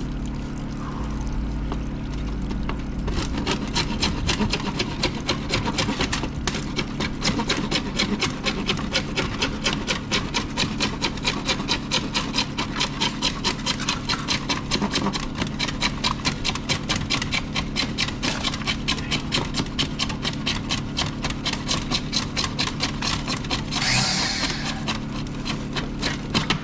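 Hand saw cutting through sewer pipe in steady back-and-forth strokes, about three a second, over a diesel engine idling.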